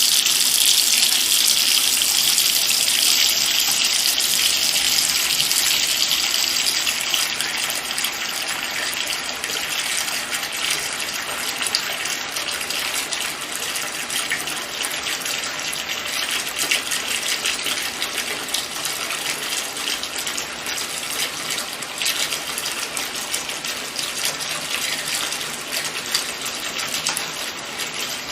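Water from a running tap filling a bathtub: a steady gush, a little louder in the first few seconds and then settling to an even level.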